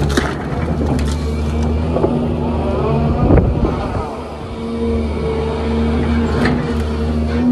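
Diesel engine of a 30-tonne excavator running steadily under hydraulic load as its grab handles a pine log, with a sharp knock at the start and a heavier crunch of wood about three seconds in. The engine note eases briefly just after the crunch, then picks up again.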